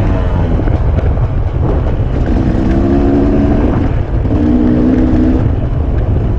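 KTM 250 EXC two-stroke engine running under way at low speed, its pitch shifting with the throttle and holding steady for about a second at a time, under a heavy low rumble. The bike is running clean.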